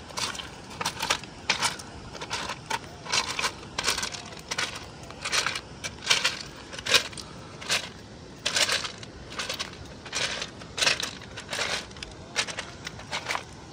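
Footsteps crunching on loose flat rocks and gravel, about two steps a second, the stones clinking and grinding underfoot.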